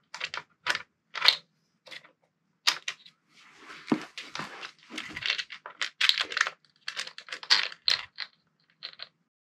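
Clicks and clatter of small parts being handled as the belt-drive cap is fitted back on: a few separate clicks, then a busier run of rattling taps with a dull knock about four seconds in. It stops abruptly near the end.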